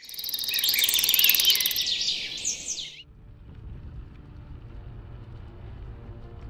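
A loud burst of bird chirping, many quick rising and falling calls, cuts off abruptly about three seconds in. A low rumble and faint music follow.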